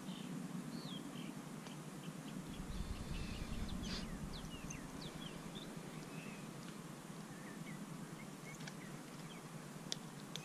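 Birds calling in short, high chirps scattered throughout, over a steady outdoor hiss. A low rumble comes in about two and a half seconds in and fades about two seconds later, and there are a couple of sharp ticks near the end.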